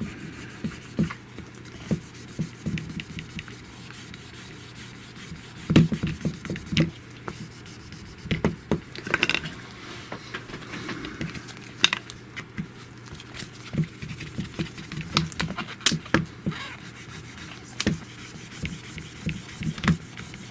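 Scattered small clicks, taps and rubbing scrapes of a small hand tool working at a phone's screen protector, lifting and pressing at its edge.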